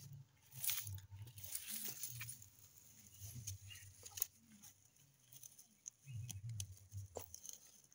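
Faint rustling and crackling of dry leaf-and-twig mulch and carrot foliage underfoot, with scattered sharp clicks and soft irregular low thumps.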